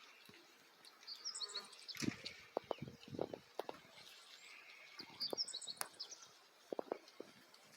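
Birds singing outdoors: a short phrase of quick high notes comes twice, about a second in and again about five seconds in, with scattered soft clicks and knocks in between.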